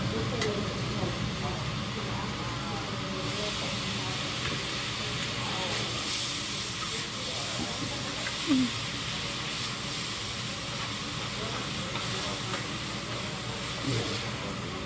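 Food sizzling on a teppanyaki griddle, a steady hiss that gets louder and brighter about three seconds in, with restaurant chatter in the background.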